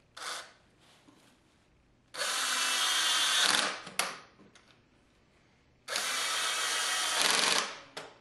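Power drill driving stainless steel screws through countersunk strap iron into a wooden sawhorse: a short blip, then two steady runs of about a second and a half each, with a click after the first.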